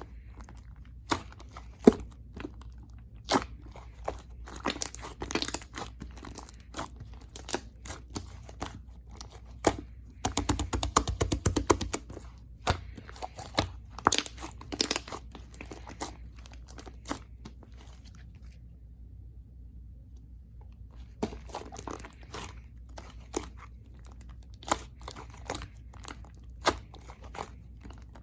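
Purple jelly-textured slime being coiled and pressed by hand, giving sharp sticky clicks and pops. There is a quick run of rapid pops about ten seconds in and a short pause about two-thirds of the way through.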